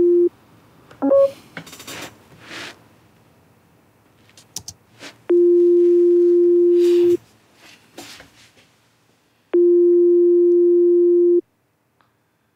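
Ringing tone of an outgoing call waiting to be answered. A steady low tone lasts about two seconds and repeats roughly every four seconds: one ring ends just after the start, and two more follow. Between the rings there is a short beep, soft rustling and a few clicks.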